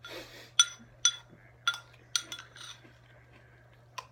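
Spoon clinking against a cereal bowl while eating, about six short ringing clinks at uneven intervals, with a brief scrape at the start. A steady low electrical hum runs underneath.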